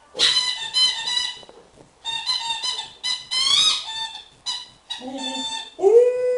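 Squeaky rubber dog toy squeezed in quick, short squeaks, one rising in pitch, then a dog starts howling along in a long, steady howl about five seconds in.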